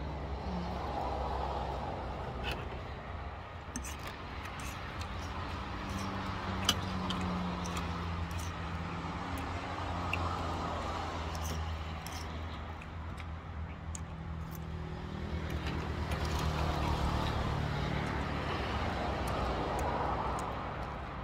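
Motor vehicle engines running close by, a steady low hum that swells and fades twice as traffic comes and goes, with a few light clicks over it.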